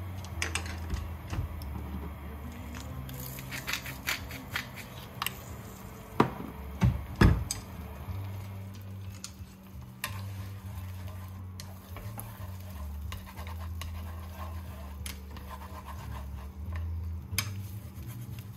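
Kitchen utensils scraping and clicking against cookware, with a few louder knocks about six to seven seconds in, over a steady low hum.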